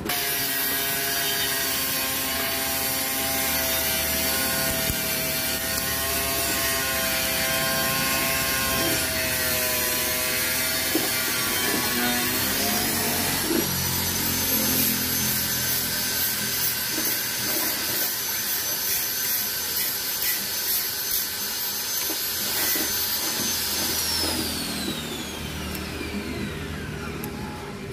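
Electric power-tool motor running steadily: its whine climbs to a higher pitch about halfway through, holds, then winds down over a few seconds near the end. Scraping and cutting of thin sheet metal by hand tin snips sounds over it.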